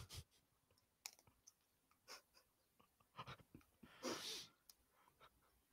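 Near silence: a few faint clicks, and a short breathy sound about four seconds in.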